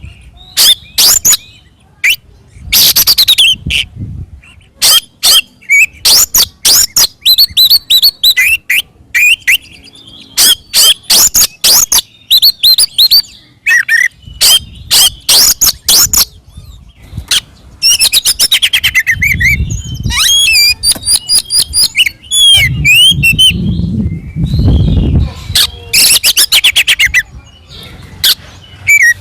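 Oriental magpie-robin (kacer) singing loudly in its aggressive fighting style: rapid bursts of sharp, harsh notes mixed with whistled phrases, broken by short pauses. A low rumble sits under the song twice in the second half.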